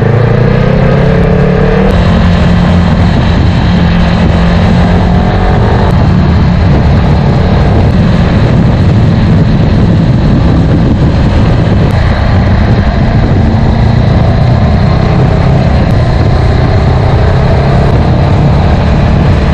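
Sport motorcycle engine running steadily at road speed, its pitch rising a little near the start and again near the end, with wind noise rushing over the bike-mounted microphone.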